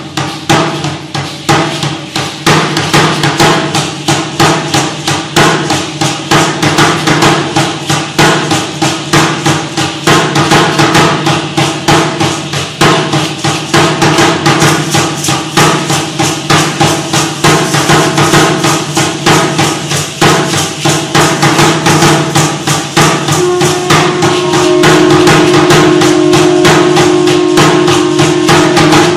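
Aztec dance music: a fast, steady beat on an upright huehuetl drum mixed with the dancers' seed-pod ankle rattles clacking. A steady held note joins about six seconds before the end.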